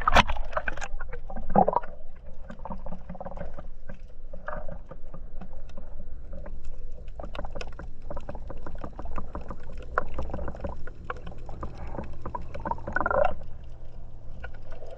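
Water sloshing and splashing close to the microphone, with many small clicks and knocks over a constant low rumble. There are a few louder splashes, one near the start, one near the end and a couple in between.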